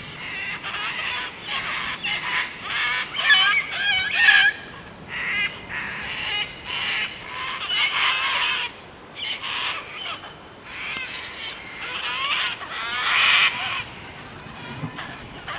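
A flock of cockatoos screeching, many harsh calls overlapping one after another.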